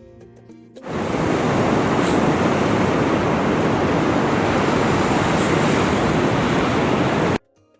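Ocean surf rushing steadily, with wind on the microphone, cutting in abruptly about a second in after soft plucked-string music and cutting off suddenly near the end.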